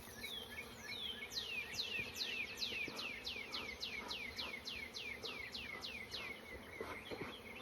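A songbird singing a long run of quick, downward-sliding whistled notes, about four a second, starting about a second in and stopping near the end. Beneath it is the low hum of honeybees at an open hive.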